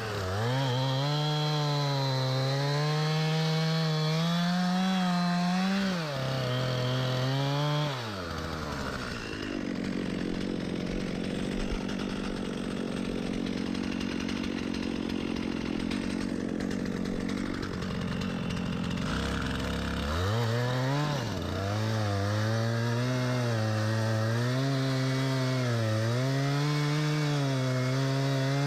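Two-stroke chainsaw running at high revs, its pitch wavering as it cuts wood. A little after the first third the pitch drops and the sound turns rough and noisy for about ten seconds, then the saw revs back up and runs on steadily.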